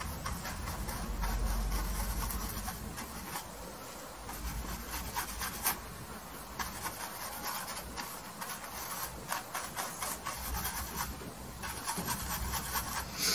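Bristle paintbrush scrubbing and dabbing oil paint onto canvas: an uneven run of short, scratchy strokes, with a low rumble about a second in.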